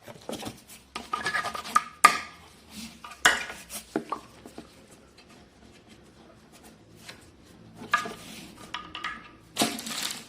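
Objects being handled during an unboxing: irregular knocks, clicks and short rustles of plastic parts and packaging being picked up and set down, loudest about two and three seconds in and near the end.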